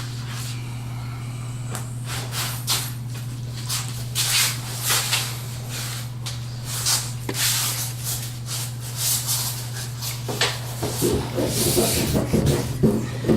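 Hand saw cutting through plastic drain pipe in uneven back-and-forth strokes, about one or two a second, quicker and fuller near the end, over a steady low hum.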